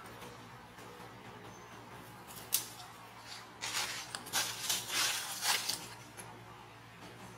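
Dry leaves and a twig rustling and scraping on the ground as a baby macaque handles a stick, with a sharp click a couple of seconds in and a cluster of short rustles in the middle.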